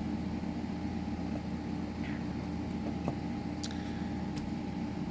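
Steady low background hum, with a few faint clicks about three seconds in.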